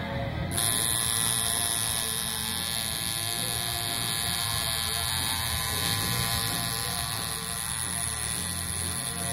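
Tattoo machine running with a steady electric buzz.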